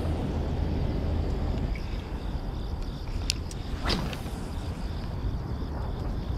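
Casting with a light spinning rod and reel: a swish about four seconds in and a few sharp clicks from the reel and line, over a steady low rumble.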